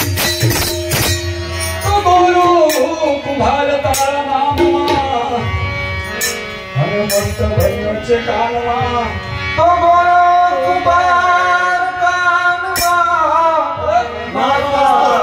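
Devotional bhajan music: a male voice singing over a harmonium, with tabla. A fast percussion passage in the first second gives way to the singing about two seconds in.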